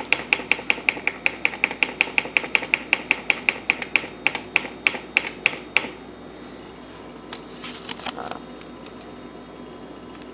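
GE Spacemaker kitchen clock-radio giving rapid short high ticks, about four a second, in step with its timer display counting down to one minute. The ticks stop about six seconds in, followed by a brief rustle.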